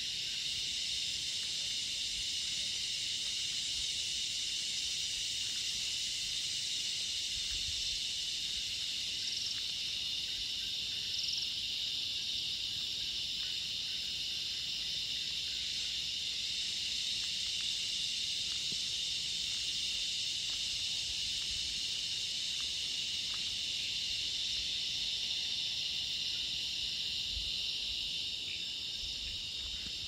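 Dense insect chorus: a steady, high-pitched drone of many insects at several layered pitches, holding without a break.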